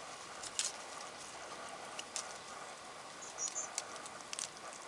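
Young North American porcupine chewing a dandelion leaf: irregular small crunching clicks from its teeth on the leaf.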